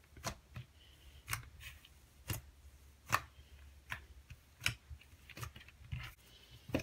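White-glue cloud cream slime being pressed and kneaded by hand, giving a string of short crisp clicks and pops, roughly one a second.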